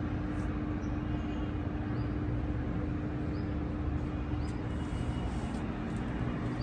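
Steady outdoor background rumble with a constant low hum running through it and a few faint, short high chirps.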